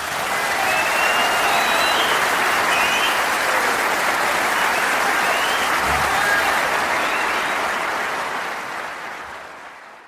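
Concert audience applauding, with some cheering, at the close of a live big band performance; the applause fades out over the last couple of seconds.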